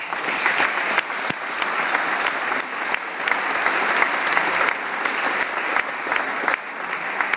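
Audience applauding: many hands clapping steadily, with a few louder single claps standing out close by.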